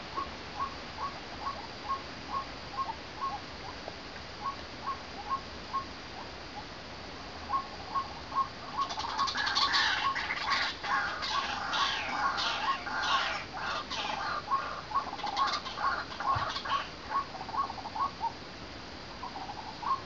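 White-breasted waterhen calling: a steady series of short 'wak' notes, about two a second. From about nine to sixteen seconds in, a louder, denser chattering joins the notes, then the plain series carries on.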